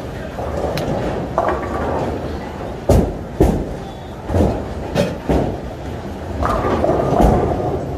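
Bowling alley din: balls rolling down the lanes in a steady rumble, broken by about half a dozen sharp knocks and crashes of balls and pins.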